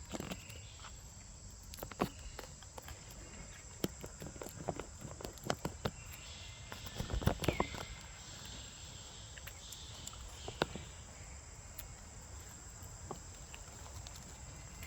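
Irregular light clicks and taps, busiest about seven seconds in, over a steady high-pitched tone and a low rumble.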